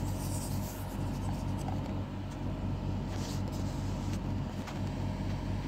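Light paper and cardboard handling: a printed slip being lifted and shifted in a small watch box, with a few short rustles, the clearest about three seconds in. A steady low hum runs underneath.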